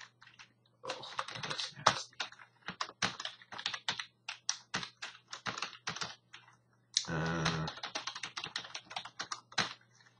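Typing on a computer keyboard: quick runs of keystrokes, broken about seven seconds in by a short low buzz lasting about half a second.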